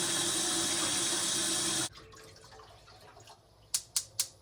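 Kitchen tap running in a steady stream, shut off abruptly about two seconds in. Near the end comes a quick run of sharp clicks, about four a second.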